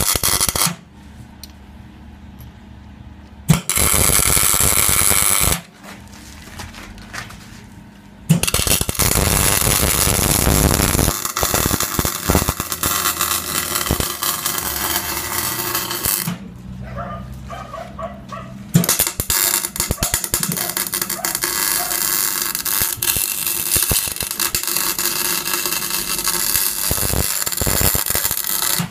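MIG welding arc crackling and sizzling as the differential's gears are welded solid to lock the diff. It comes in separate beads with short pauses: a brief one at the start, another about 4 s in, a long run from about 8 s, and another from about 19 s.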